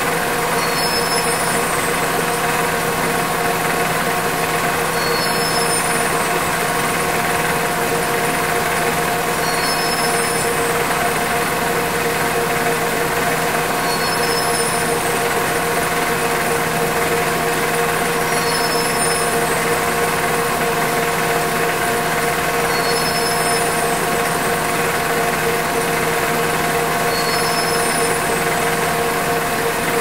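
Textile warping machine running steadily: a dense, even mechanical hum with a faint high-pitched chirp recurring about every four seconds.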